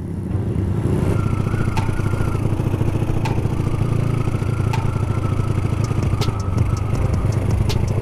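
Motorcycle engine running steadily, a dense low rumble with fast even pulsing and a few faint ticks about every second and a half.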